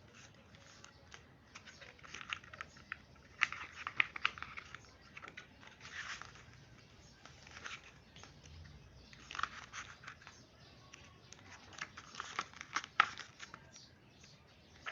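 Pages of a glossy photo book being turned and handled, a short rustle of paper every second or two.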